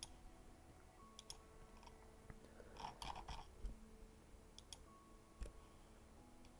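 Computer mouse clicking a few times, scattered sharp clicks over near-silent room tone.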